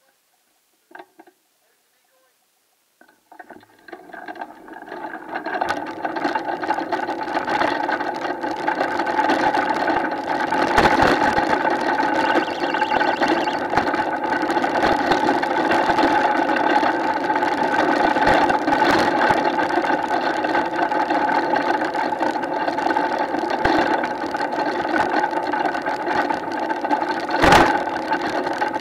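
Unpowered three-wheeled gravity racer rolling down a tarmac lane: after a near-silent start, the road noise of its wheels builds over a few seconds as it gathers speed into a steady hum with scattered clicks and knocks, and one louder knock near the end.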